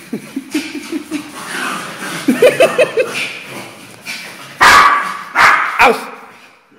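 Two small dogs playing rough: a run of short, repeated yips and growly calls in the first three seconds, then a few loud, sharp barks between about four and a half and six seconds in.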